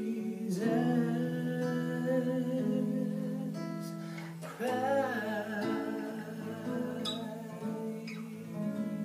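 Acoustic guitar picked and strummed under a man's voice singing long held notes, two sung phrases with a wavering pitch.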